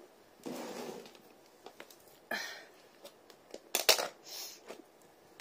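Plastic takeaway food containers being handled: scattered rustles and a few sharp plastic clicks, the loudest cluster about four seconds in.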